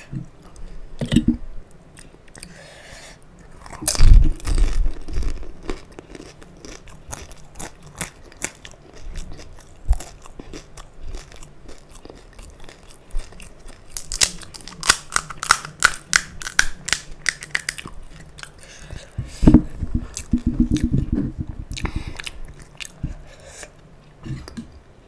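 Close-miked eating of panipuri: crisp puri shells cracking when bitten, then crunching and chewing. The loudest bites come about four seconds in and again near twenty seconds, with a quick run of crunches in between.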